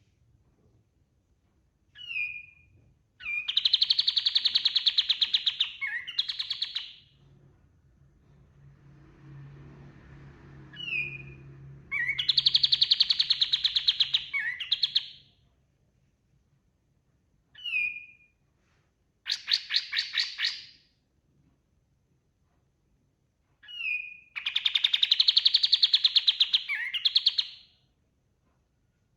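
Kapas tembak (a bulbul) singing: phrases that each open with a short falling whistle and run into a long, rapid stuttering trill, repeated about five times with short pauses between.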